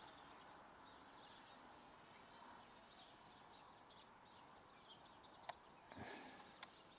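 Near silence: faint outdoor background hiss with a few faint, high bird chirps, and two small clicks near the end.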